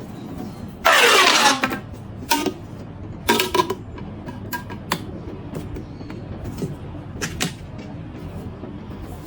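Marbles rolling and clacking down a wooden marble run: a loud clattering rush about a second in, then a string of sharp clicks and clacks as they knock along the track.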